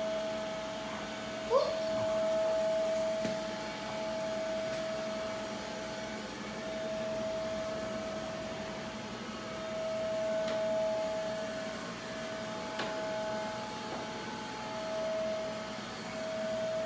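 Robot vacuum cleaner running with a steady whine that swells and fades as it moves about. A short rising squeak comes about a second and a half in.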